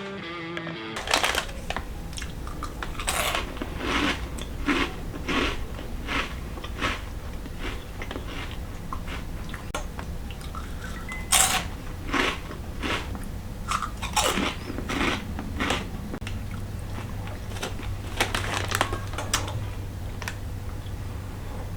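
Irregular sharp clicks and knocks, as of objects being handled and set down, over a steady low hum.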